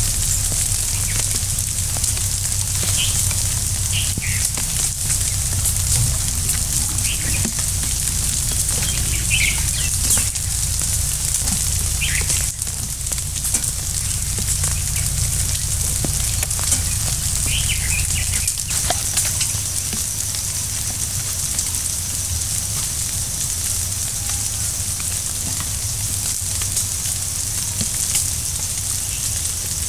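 Forest ambience: short bird chirps every few seconds over a steady high hiss and a low rumble, with the chirps dying out about two-thirds of the way through.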